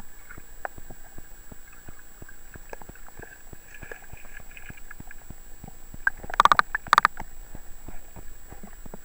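River water heard through a camera held underwater: a muffled wash with many small clicks and ticks, and two louder knocking clusters about six and a half and seven seconds in.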